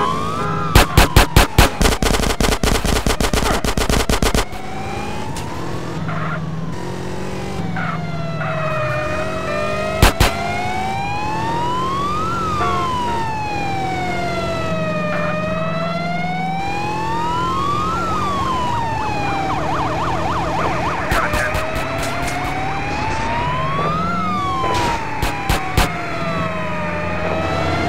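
Argentine police car siren wailing, its pitch gliding slowly up and down in long sweeps of several seconds each. A rapid run of loud sharp clicks fills the first few seconds, and a few more single clicks come later.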